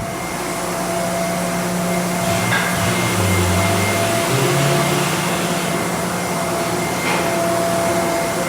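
Steady rushing air noise with a constant hum from a motor-driven blower, with a lower tone that wavers for a couple of seconds midway.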